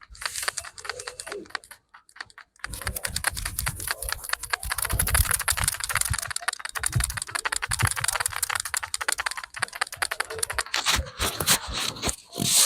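Barber's hands rapidly tapping and chopping on a customer's head during a head massage: a fast, dense run of dry slaps. It breaks off briefly about two seconds in, then comes back and thins into separate, spaced strikes near the end.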